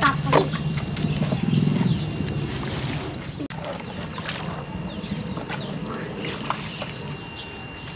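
Live eels and water sloshing and knocking inside a plastic jerrycan as a hand reaches in among them, with scattered short clicks. A low drone runs under the first two seconds or so, then fades.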